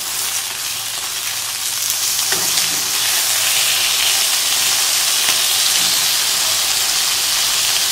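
Seasoned chicken leg steaks sizzling in hot oil in a frying pan. The hiss is steady and grows a little louder over the first few seconds.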